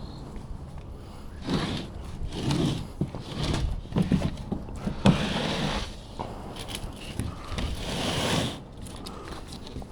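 OSB sheets scraping and bumping as they are slid and handled, a series of rough scrapes with longer ones about five and eight seconds in.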